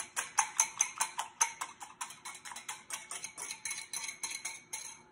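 Wire whisk beating eggs in a small ceramic bowl: the wires clink against the bowl in a fast, even rhythm of about six strokes a second.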